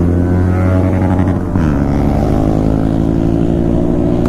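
Motorcycle engine running under way, a steady drone; about a second and a half in the note dips briefly, then climbs slowly in pitch as it pulls again.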